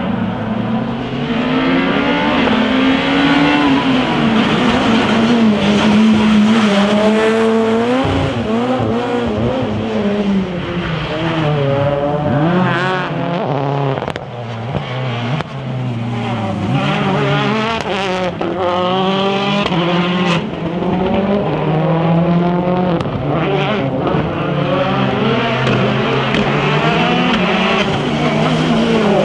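Rally car engines at full throttle, revving up and dropping back again and again through gear changes, with several short sharp cracks along the way.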